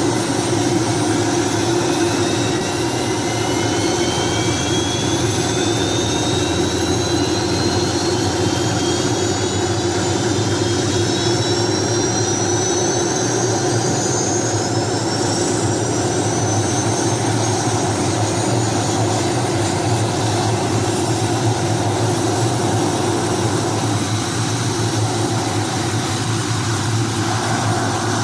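Steady, loud engine drone like a jet or turbine, with several high whining tones that rise slowly over about the first fifteen seconds and then fade out.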